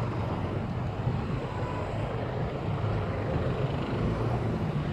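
Steady city traffic noise with a low rumble, heard from a moving bicycle.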